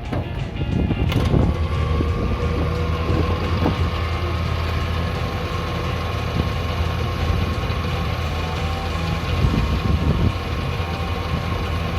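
Flatbed tow truck's engine running steadily, with a steady whine and a few clanks near the start and again about ten seconds in.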